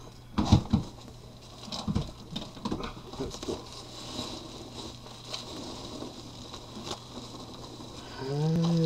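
Polystyrene packing peanuts and bubble wrap rustling and crackling as hands dig through a cardboard box, with a few sharp knocks about half a second in. Near the end a man's voice gives a short drawn-out sound that rises and falls in pitch.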